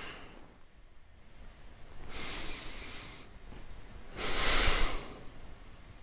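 A man's controlled breathing paced to a Pilates single leg stretch: two audible breaths, a longer one about two seconds in and a louder, shorter one about four seconds in.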